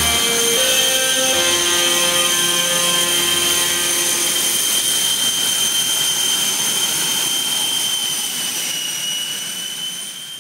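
L-29 Delfín's turbojet engine running with a steady high whine over a rushing roar; the whine dips slightly in pitch near the end as the sound fades out.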